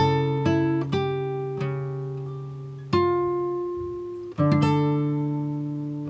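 Background music: slow plucked-string chords, each struck and left to ring out, a new chord every second or so.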